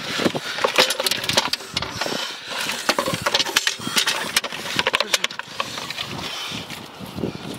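Plastic bottles crinkling and knocking against one another and against a metal bucket as they are handled, a rapid irregular run of clicks and clatters.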